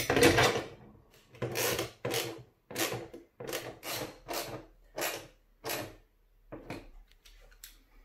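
M8 bolts being turned with a hand tool through a wall-mounting bracket into the back of a TV: a run of about ten short scraping strokes, one or two a second.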